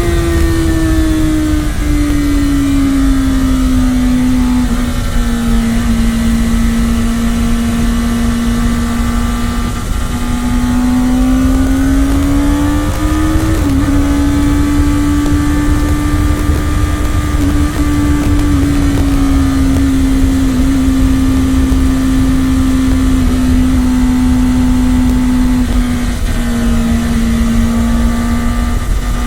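Kawasaki Ninja ZX-10R's inline-four engine running at steady high revs under way. Its pitch eases down, climbs slightly, dips briefly about halfway, then holds, over a steady low rumble.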